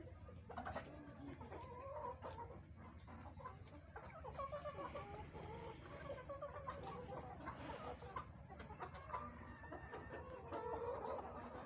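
A flock of hens clucking continuously, many overlapping calls, with scattered sharp taps of pecking at food.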